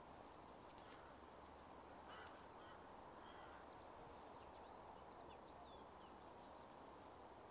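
Near silence: faint outdoor ambience with a few short, distant bird calls, some gliding down in pitch, a couple of seconds in and again later.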